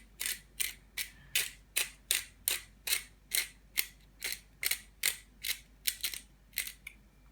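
Twist-top spice grinder of steakhouse seasoning being turned in a steady rhythm, a short grinding rasp about two and a half times a second, stopping shortly before the end.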